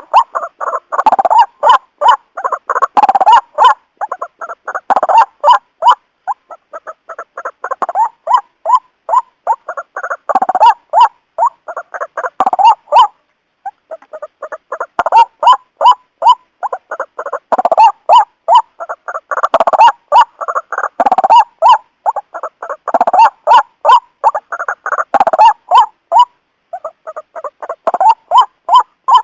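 White-breasted waterhen lure call: loud, rapid runs of short repeated notes, several a second, coming in bouts with a brief break about halfway through.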